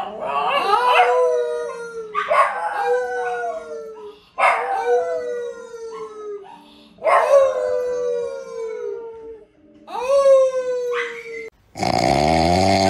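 A small dog and a man howling together: five long howls, each sliding down in pitch, the dog's voice overlapping the man's. Near the end the sound switches abruptly to a man's loud snoring.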